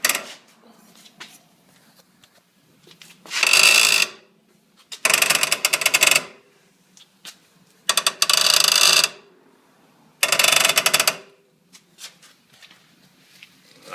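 Polaris RZR suspension giving four loud creaks, each about a second long and made of rapid fine ticks, as the machine is pushed down on its shocks. A few light clicks come between them. It is a new creak since aftermarket radius arms were fitted, and the owner cannot place it; he wonders about the piggyback shocks.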